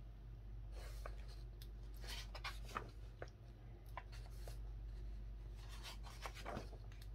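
Glossy magazine pages being handled and turned: faint, short paper rustles and slides, one every second or so, over a low steady hum.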